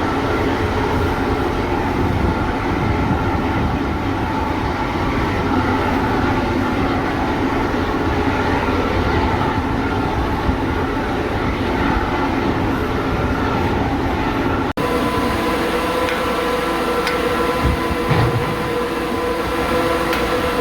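Aluminium ingot casting machine running: steady, loud industrial machine noise with a constant hum. About 15 seconds in the sound changes abruptly, the low rumble falling away and the hum tones standing out more clearly.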